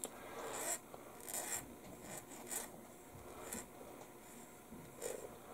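A handful of short, irregular scratchy strokes of a file or sanding stick on a small photo-etched metal part, smoothing away the attachment points left from the fret.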